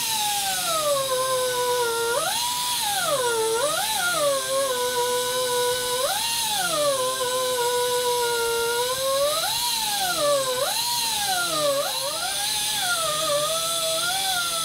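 Hand-held die grinder fitted with a Kutzall carbide cutter, carving waste wood from a carving block: a loud steady whine over a hiss, its pitch sagging as the cutter bites into the wood and swinging back up each time the load eases, about half a dozen times.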